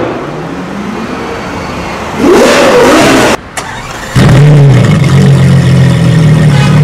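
Car engine revving and accelerating, in edited snippets. About two seconds in there is a loud rev that rises and falls. It cuts off suddenly near the middle, and then a loud, steady high-rev pull runs through the rest.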